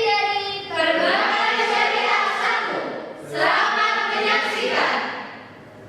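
A choir singing held chords in two phrases, with a short break about three seconds in, the sound dying away near the end.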